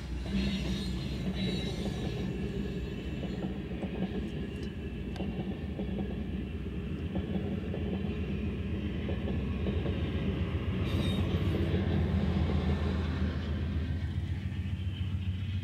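Amtrak passenger train passing close by: GE P42DC diesel locomotives with coaches between, a steady low rumble of wheels on the rails. The rumble swells near the end as the trailing locomotive goes by.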